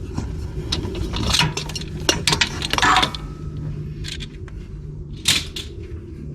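Metal hand tools clinking and knocking as they are handled and set down, with a louder ringing clink about three seconds in and another sharp knock a couple of seconds later.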